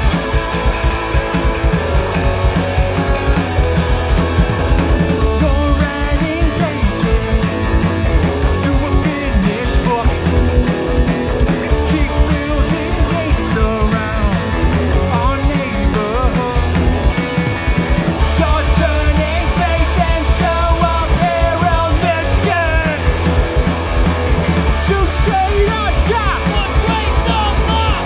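Punk rock band playing live: distorted electric guitars, bass guitar and drum kit, with a man singing over them.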